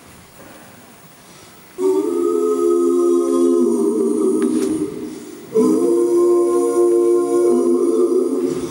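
Three backing singers singing wordless held harmony chords, a capella: after a quiet start, one chord comes in about two seconds in and holds for about three seconds, then a second held chord follows about a second later.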